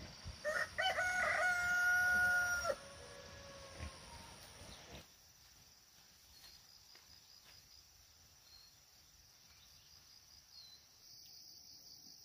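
A rooster crowing once, a single long call lasting about two seconds that drops off at the end. A steady high-pitched insect drone, crickets or similar, continues underneath.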